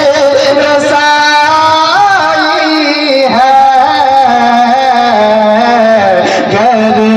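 A man singing a naat into a microphone, holding long, ornamented notes that slide up and down over a steady held tone beneath.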